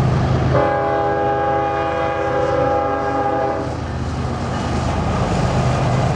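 Norfolk Southern GE ES40DC freight locomotive's air horn sounding one steady chord of several notes for about three seconds, starting about half a second in, over the low rumble of the passing diesel locomotives.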